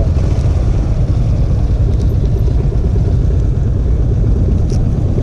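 Single-cylinder motorcycle engine idling steadily: an even, low rumble.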